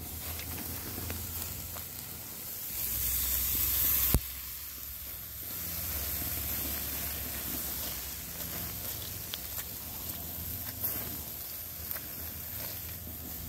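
Chicken thighs sizzling on a charcoal grill's grate as lemon juice is squeezed over them, with a louder hiss building a few seconds in that cuts off sharply.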